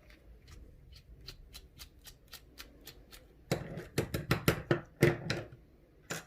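A screwdriver backing screws out of a padlock's tailpiece, making a steady series of light clicks about four a second. Then, about three and a half seconds in, a short spell of louder clatter as small metal lock parts are handled.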